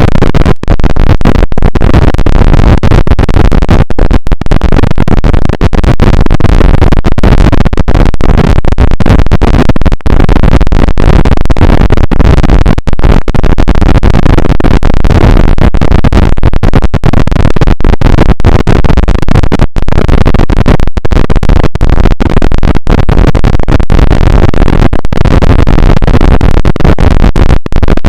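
Harsh, heavily distorted noise played at full volume and clipping, continuous but broken by many brief, sharp dropouts.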